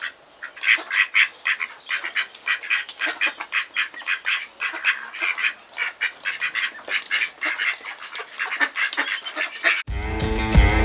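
A small group of mallard ducks quacking in a quick, busy chatter of short calls. Just before the end it cuts abruptly to rock music with guitar and drums.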